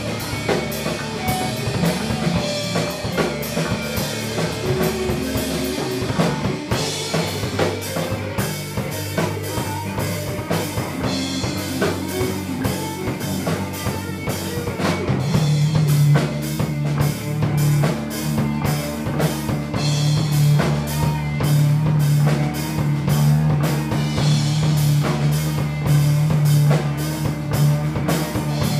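Band rehearsal recording of rock music, with the drum kit to the fore and guitar. About halfway through, a deep, held bass tone comes in and the music grows a little louder.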